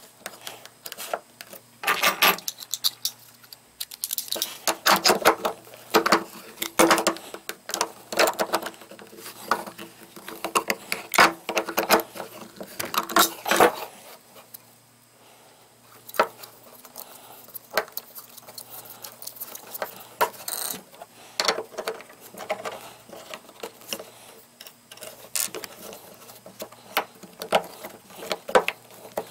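Metal pipe fittings being handled and screwed together by hand: a galvanized elbow and a brass ball valve clinking and scraping on taped threads. The sounds come in irregular clusters, with a quieter stretch about halfway through.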